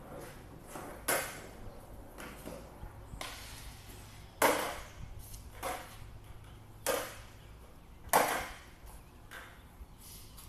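Skateboard hitting a concrete floor: a series of sharp clacks and knocks. The loudest come about four and a half and eight seconds in, with quieter ones between.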